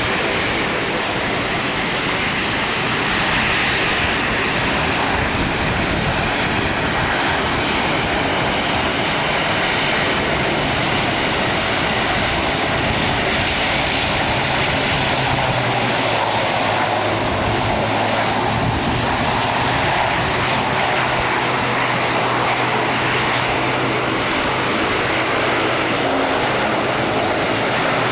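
Aircraft engines running steadily at an airport, under the even hiss of heavy rain; a low steady hum comes in about halfway through.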